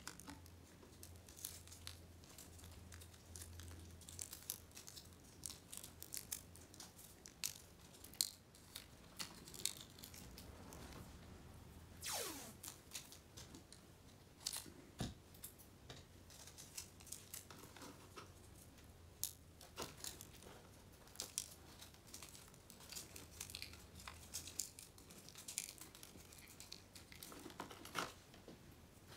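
Vinyl electrical tape being pulled off the roll and wrapped around wiring: faint scattered rustles and small clicks, with one short peeling screech that falls in pitch about twelve seconds in.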